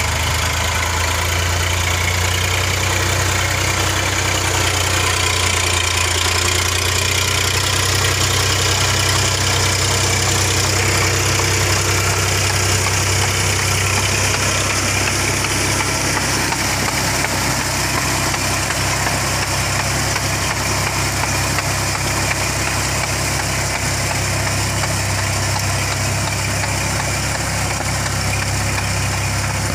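Mahindra 7250 50 hp tractor's diesel engine running steadily under load while it drives a rotary tiller through a flooded paddy field.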